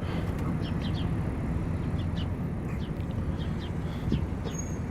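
Birds chirping in short, repeated high notes over a steady low rumble.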